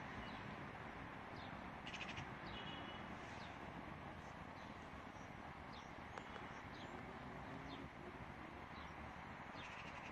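Birds chirping in short, scattered high calls over a steady background hiss, with a harsher, rasping call about two seconds in.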